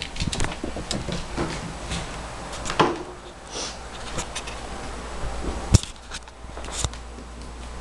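Scattered light knocks and taps, with two sharper, louder knocks in the second half.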